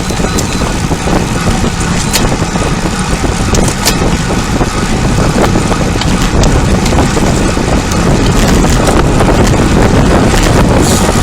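Loud wind rushing over the microphone of a cyclist riding fast in a sprint. The rush is steady and gets a little louder in the second half.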